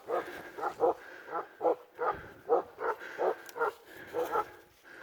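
Kangal and Dogo Argentino cross hunting dog barking repeatedly, about two to three barks a second without let-up: baying at a wild boar held in its bed.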